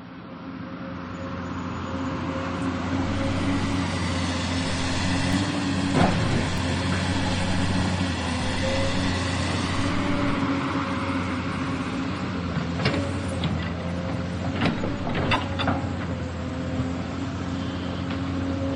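Excavator at work: its diesel engine runs steadily, fading in over the first couple of seconds. Sharp knocks come about six seconds in and again in a cluster around thirteen to sixteen seconds.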